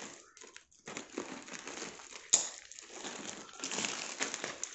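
Plastic courier mailer and honeycomb kraft-paper wrapping crinkling and rustling as the tightly packed parcel is cut with scissors and pulled open, with a sharp snap a little over two seconds in.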